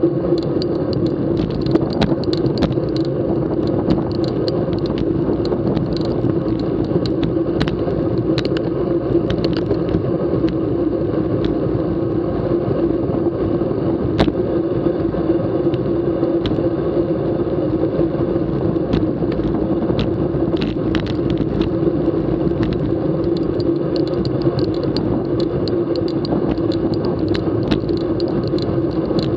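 Steady rumble of road and wind noise from a racing bicycle rolling along with a group of riders, heard through an action camera's microphone, with scattered sharp clicks and knocks.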